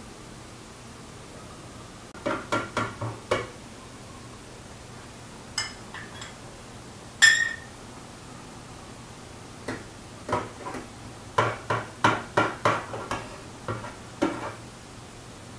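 Metal spoon clinking and knocking against a large aluminium pot of warm milk as yogurt starter is stirred in. A quick run of four knocks comes about two seconds in, then one loud ringing clink a few seconds later, then a busy flurry of taps from about ten to fourteen seconds.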